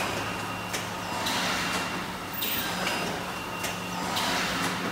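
HM HSP-6 filter-welding K-cup capsule filling and sealing machine running through its cycle: a steady low hum with a hissing rush that swells and fades every second or two, and light mechanical ticks.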